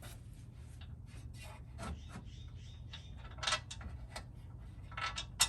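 Irregular light scraping and clicking of metal hardware being handled, as bolts and the aluminum inner structure are fitted. The sharpest clicks come about three and a half seconds in and at the end, over a steady low hum.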